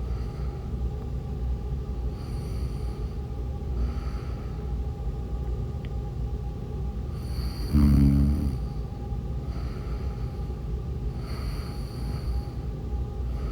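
A sleeping woman snoring: one short, deep snore about eight seconds in, with softer breaths every few seconds in between.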